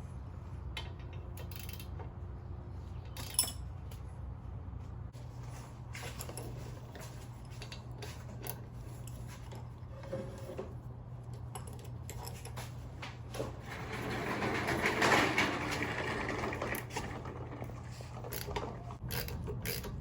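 Hand tools working on a car's rear brake assembly: scattered metallic clicks and clinks, and a louder stretch of scraping about three-quarters of the way through, over a steady low hum.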